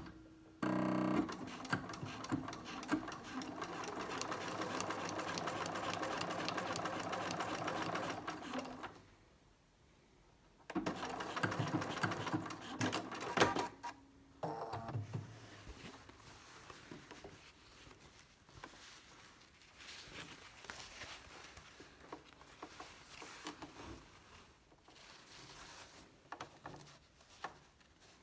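Bernina electric sewing machine stitching webbing onto a thick woven placemat. It runs steadily for about eight seconds, stops, runs again for about three seconds, and is followed by quieter, intermittent sounds.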